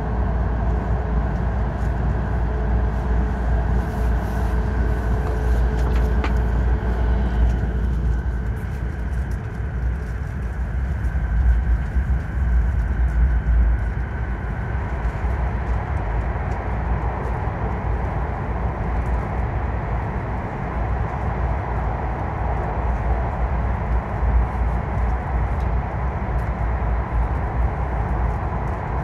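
Steady low rumble and rushing noise of a Shinkansen bullet train running through the Seikan undersea tunnel, heard inside the passenger cabin.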